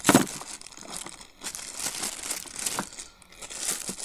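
Plastic wrapping crinkling and rustling in irregular bursts as it is handled, loudest right at the start.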